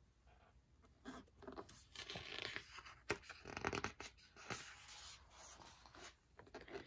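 A hardcover picture book's page turned by hand: quiet paper rustling and scraping for a few seconds, with a sharp tap about three seconds in.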